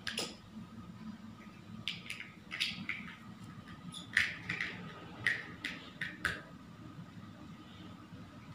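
Large plastic toy building blocks clicking and clacking as they are pressed together onto a tower: a string of sharp, irregular clicks that stops about six and a half seconds in.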